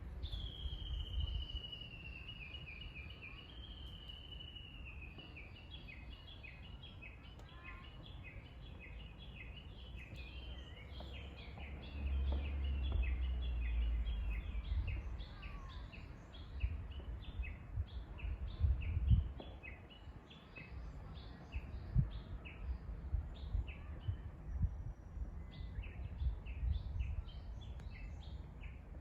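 Japanese bush warbler (uguisu) calling. It opens with a long falling trill, then keeps up a long run of rapid, repeated sharp notes. A low rumble comes in about midway, with a few low thumps later on.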